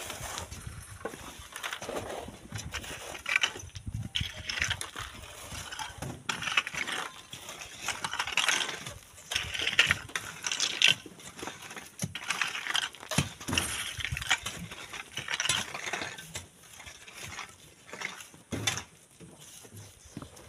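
Irregular clinking, knocking and scraping of stones and sand being worked by hand during manual sand mining, with many short strikes scattered throughout.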